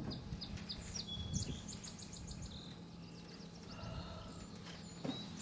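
A songbird chirping in a quick run of short, high notes over the first two seconds or so, with a few more scattered calls later, over a faint steady low hum.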